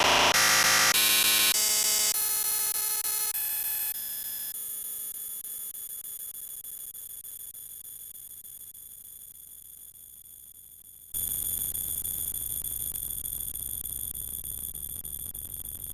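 Bowling-pin crash sound effect, digitally layered and distorted into a harsh, buzzing drone of steady ringing tones. It changes in steps over the first few seconds, then fades slowly, jumps back up about eleven seconds in, and fades again.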